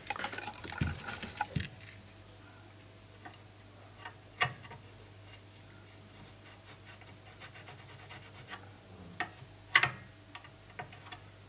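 Scattered small clicks, taps and scratching from handling a wire and soldering tools on a TV power supply board, over a faint steady hum. A cluster comes in the first second and a half, a sharper tap about four and a half seconds in, and the loudest click near ten seconds.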